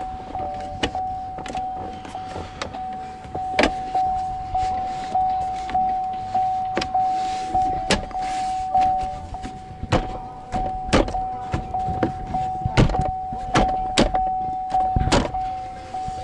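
A car's warning chime dinging over and over, about one and a half dings a second, with scattered sharp clicks and knocks of hands working on plastic interior trim.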